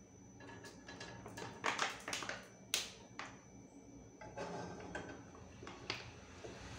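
Sharp plastic clicks and taps as a bottle of cooking oil is handled over an aluminium pot on the gas stove, in a quick irregular run with the loudest knocks about two and three seconds in.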